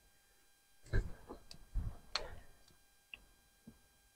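A few faint, irregular clicks and light knocks, of tools or engine parts being handled.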